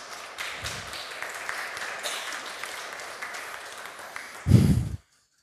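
Audience applauding: many people clapping steadily. Near the end there is a short, loud low rumble, and then the sound stops abruptly.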